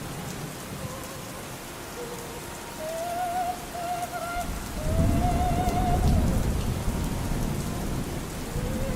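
Steady rain with a low rumble of thunder building from about halfway, over faint operatic singing, a single voice with a wide vibrato on held notes.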